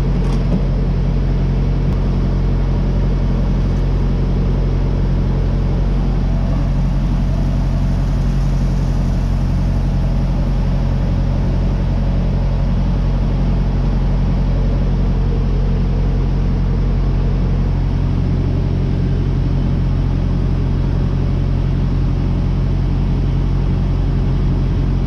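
Steady low hum of an idling diesel truck engine, with diesel running from a pump nozzle into a plastic jerry can.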